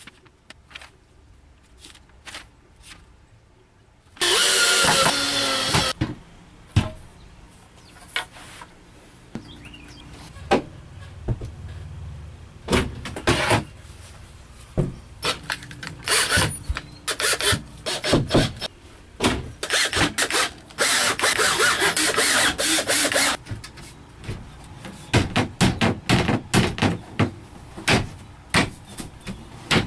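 Power drill running in several stretches of a few seconds, driving fasteners into a metal bed frame during assembly, with sharp clanks and knocks of the metal rails being handled and fitted in between.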